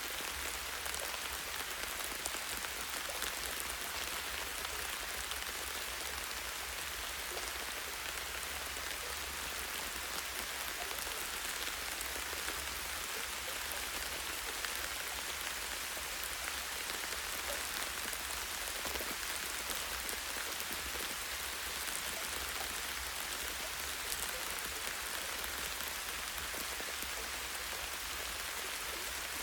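Light rain falling steadily on a tree branch and its leaves: an even hiss of rain dense with tiny drop ticks, over a faint steady low rumble.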